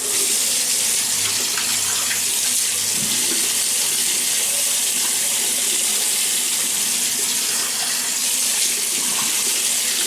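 Water running steadily from a bathroom sink tap while a face is wetted before shaving.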